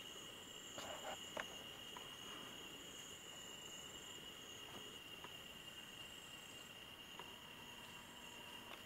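Night insects such as crickets trilling steadily in two high, continuous tones. A few faint clicks come about a second in.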